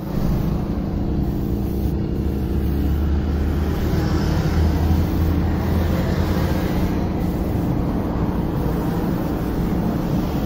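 Air compressor running steadily to feed a gravity-cup paint spray gun: a constant low hum, with air hissing from the gun.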